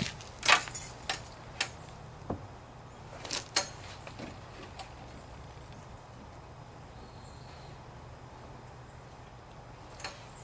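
Sharp knocks and clatters of parts being handled, about half a dozen in the first five seconds, then a quiet stretch with only a faint low hum.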